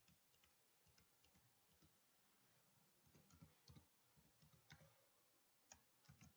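Faint, irregular clicking of computer keyboard keys as a word is deleted and retyped.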